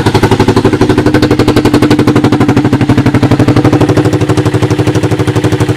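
A 1986 Honda TRX200SX single-cylinder ATV engine idling close up, with a steady rapid put-put of about a dozen firing pulses a second through its makeshift muffler.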